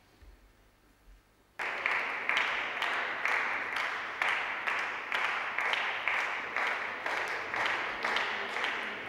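Spectators clapping in unison, a steady beat of about two claps a second that starts abruptly about a second and a half in.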